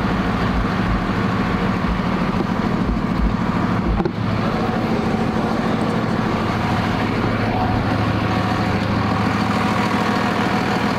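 Pickup truck engine idling steadily, a low even hum.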